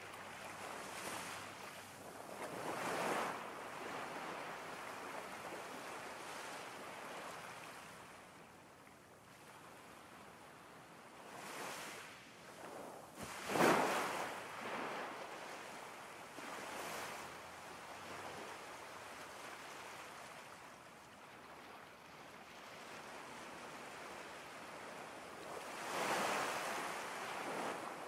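Ocean surf: a steady wash of water noise with three swells of waves breaking, the loudest about halfway through.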